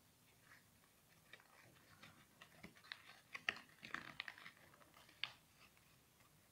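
A sheet of paper being folded and pressed by hand: faint, scattered crinkles and crisp ticks, busiest midway, with one sharper crackle about five seconds in.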